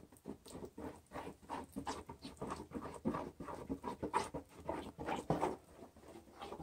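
Plastic spreader mixing Bondo body filler on a mixing board: a run of soft, irregular scraping and slapping strokes, a few a second, a little louder past the middle.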